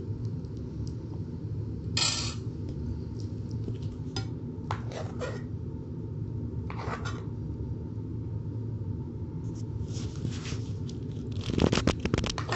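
A metal ladle and serving spoon clinking and scraping on a stainless steel plate as food is served: a handful of short knocks and scrapes, the loudest cluster near the end, over a steady low hum.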